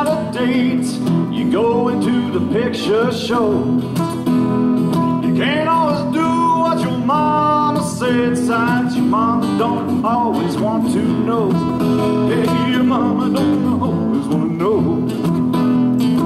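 Live folk song: acoustic guitars strummed together under a sung melody.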